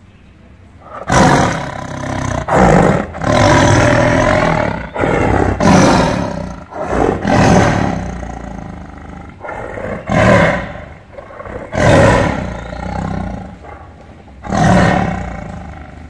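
Tiger roaring: a series of loud, pitched roars that starts about a second in, several coming close together, then fewer and further apart, with a last roar near the end.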